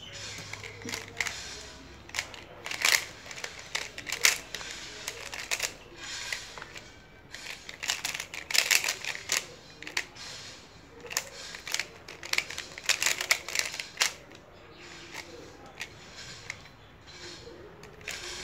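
Square-1 puzzle being turned and sliced by hand: rapid, irregular plastic clicks and clacks in quick flurries with short pauses, with a longer lull in the last few seconds.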